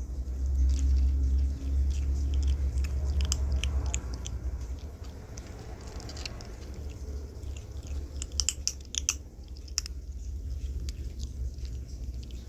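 A black kitten crunching dry kibble: many short, sharp crunches, bunched most thickly about eight to nine seconds in. Under them runs a low rumble, loudest in the first four seconds.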